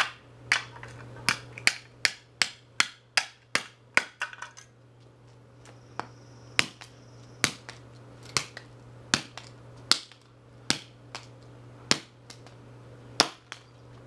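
Claw hammer striking the plastic remains of a hairdryer on concrete. A quick run of sharp blows, about three or four a second, lasts the first four seconds or so. After a short pause, single blows come roughly once a second.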